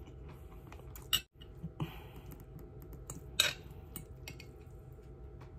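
Metal fork clinking and scraping against a glass food container while picking up noodles, with a few sharp clinks.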